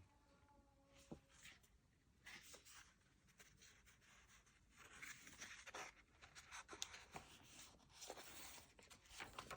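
Faint rustling and soft handling of paper pages and lace in a handmade journal, with a few light taps. A child's faint singing is heard in the first second.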